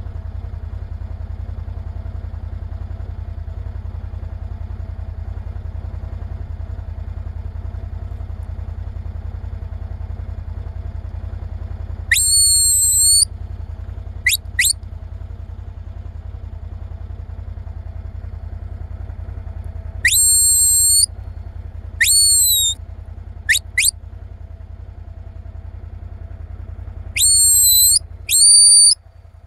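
Loud, shrill herding-whistle commands to a Border Collie working cattle. There are three groups: a blast of about a second followed by two short chirps, then a long blast, a shorter one and two quick chirps, then two blasts near the end. Each blast rises and bends in pitch.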